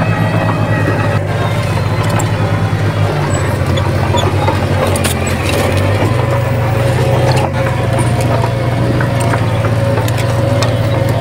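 Diesel engine of heavy earthmoving machinery running steadily under load, with a deep, evenly pulsing drone, a faint higher whine and a few sharp clicks.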